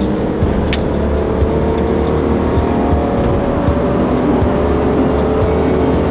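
Hyundai Azera V6 heard from inside the cabin while driving at road speed, with engine and road noise running steadily under music.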